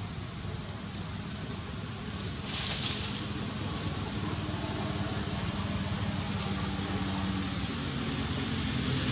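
Steady low hum like a running motor vehicle engine, with a thin steady high whine over it and a short hiss about two and a half seconds in.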